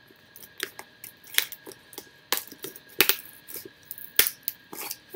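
Irregular sharp clicks, taps and knocks of packaging and products being handled in a cardboard box. The two loudest knocks come about three and four seconds in.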